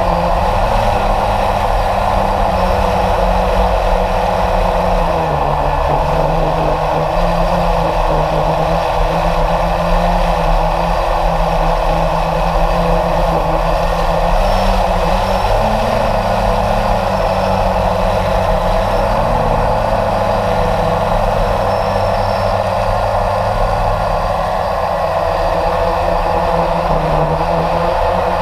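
Steady drone of a radio-controlled model aircraft's motor in flight, heard from a camera on board, with a low rumble beneath; its pitch wavers slightly now and then.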